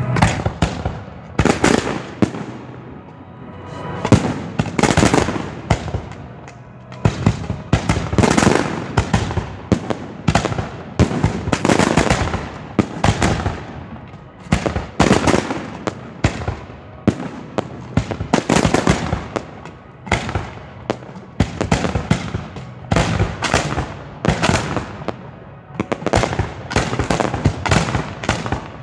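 Professional aerial fireworks fired at close range from mortars and cakes: a rapid, continuous run of sharp bangs, several a second, with brief lulls a couple of seconds in and near the end.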